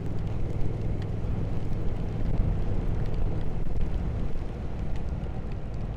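Triumph Speed Twin 1200's parallel-twin engine running steadily while the motorcycle rides along, with wind and road noise over the helmet or bike microphone.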